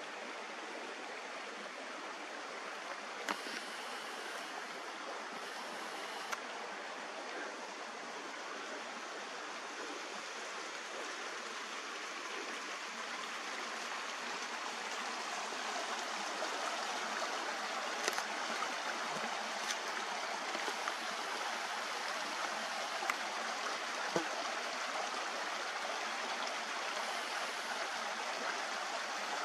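Mountain creek rushing steadily, growing a little louder in the second half, with a few faint ticks.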